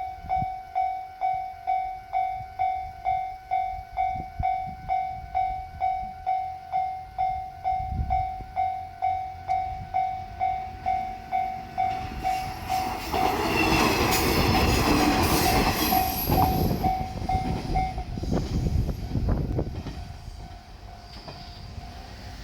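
Japanese level-crossing warning bell ringing in a steady ding-ding at about two strikes a second. About 12 s in a JR Shikoku diesel multiple unit runs through the crossing, its passing loudest for a few seconds, with wheels clicking over the rail joints. The bell stops shortly after the train has gone by, about 18 s in.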